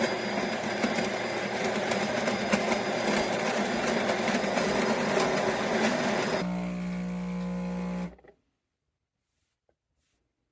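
De'Longhi Magnifica Plus fully automatic espresso machine running: a loud, rough mechanical whir for about six seconds, then a steadier hum for about a second and a half. It then cuts off abruptly to silence.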